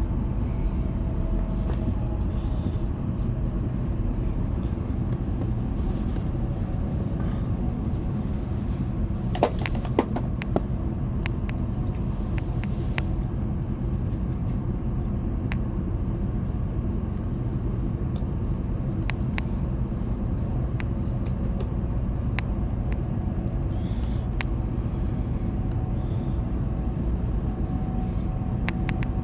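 Steady low rumble and hum of a Tokaido Shinkansen Hikari train standing at Shizuoka station during a stop of about five minutes. A few sharp clicks come about ten seconds in.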